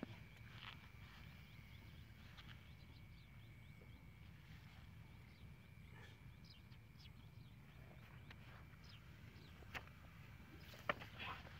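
Faint outdoor field ambience: a steady low rumble under a thin steady high tone, with scattered faint chirps. Near the end come two sharp clicks about a second apart.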